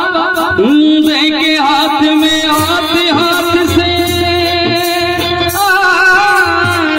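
A man singing a song into a microphone, holding long wavering notes over instrumental accompaniment.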